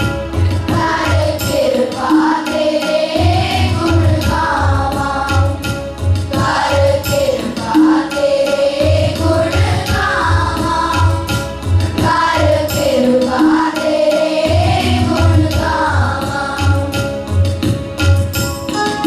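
Group of voices singing a Shabad, a Sikh devotional hymn, in unison over steady held accompanying notes. A regular drum beat runs underneath and drops out briefly twice.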